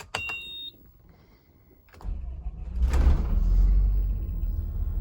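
A click with a short high tone, then after a second of quiet a 5.9 ISB Cummins inline-six turbodiesel running, a steady low rumble that grows louder about three seconds in. The engine is running smoothly now that its crank-no-start fault is fixed.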